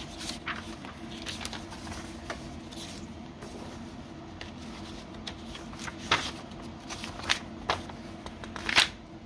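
Thin Bible pages being leafed through by hand: a run of soft rustles and quick page flicks, a few sharper flicks in the second half.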